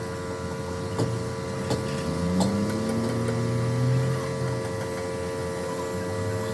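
A machine running with a steady hum and a few sharp clicks, cutting off suddenly near the end.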